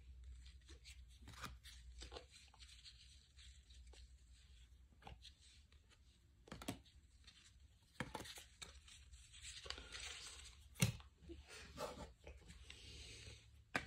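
Faint rustling and crinkling with a few light clicks as trading cards and their packaging are handled; the sharpest click comes about 11 s in and another just at the end.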